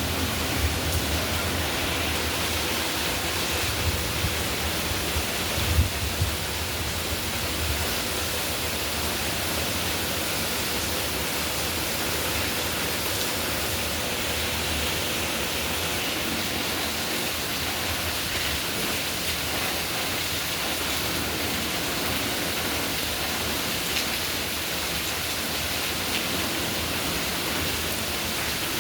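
Steady, even rain, with a low rumble of thunder fading out over the first several seconds.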